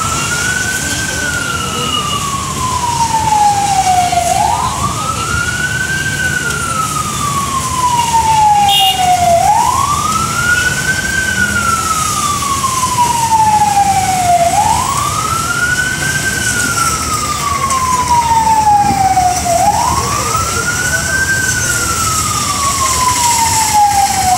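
Fire engine siren wailing in a slow repeating cycle: a quick rise in pitch, then a long falling glide, about every five seconds, five times over.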